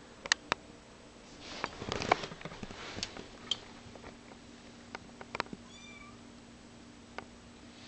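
Four-week-old kitten giving a short, high mew about six seconds in. Sharp clicks near the start and a brief rustle come before it.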